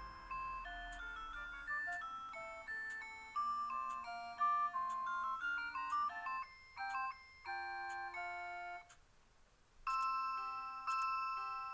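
Citizen Karakuri KC2610-2 animated clock playing its electronic melody: a tune of clear, bell-like single notes that breaks off briefly about nine seconds in, then resumes with held chords.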